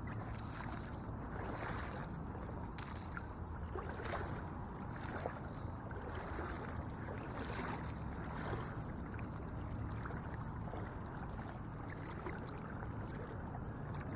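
Shallow saltwater sloshing around a wader's legs as he walks through a current, a soft swish about once a second over a steady rush of water.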